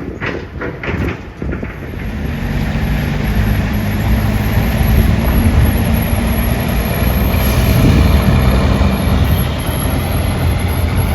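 A heavy vehicle's engine rumbling steadily, building up about two seconds in and loudest around the middle, after a few sharp knocks near the start.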